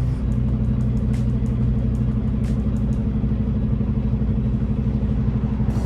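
Semi truck's diesel engine running steadily at low speed, heard from inside the cab, with a few faint clicks.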